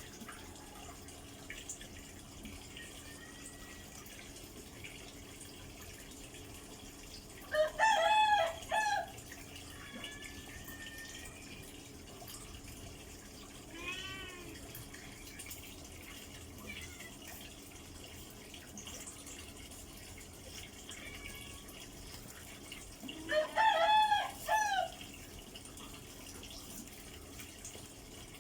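A rooster crowing twice, about fifteen seconds apart, each crow a loud call of about a second and a half in several joined parts. A fainter short call comes in between, over a low steady hiss.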